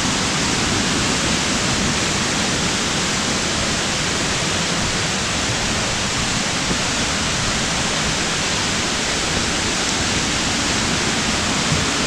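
Steady, even rush of a waterfall and the river below it.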